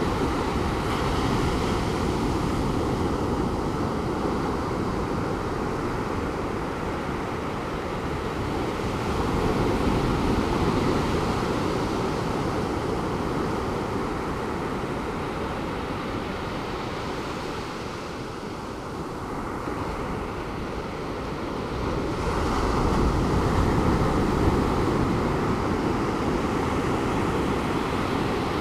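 Pacific Ocean surf breaking and washing in steadily, swelling louder twice as larger waves come in, with some wind on the microphone.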